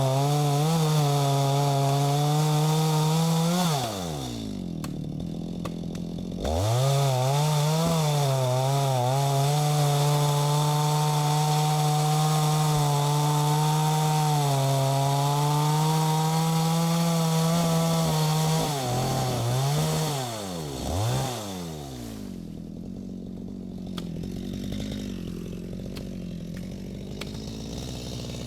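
Stihl MS 250 two-stroke chainsaw cutting wood at full throttle. About four seconds in it drops to idle for a couple of seconds, then revs back up and cuts for about twelve seconds. Near twenty seconds it revs up and down a few times, then settles to idle.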